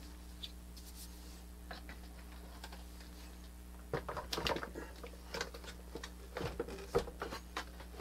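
Irregular knocks, taps and scrapes of a battery being set back into the open plastic case of a Motomaster Eliminator battery booster pack, clustered in the second half. A steady low electrical hum runs underneath.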